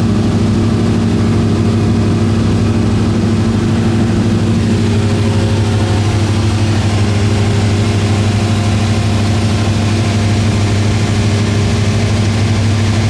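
Cessna 172's piston engine and propeller running steadily in cruise flight, a constant drone heard inside the cabin.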